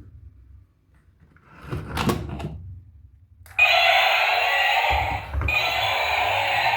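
A brief rustle and click of a toy being handled. Then, about three and a half seconds in, a loud steady electronic sound effect from a battery-powered toy vehicle's sound unit, cut off briefly twice.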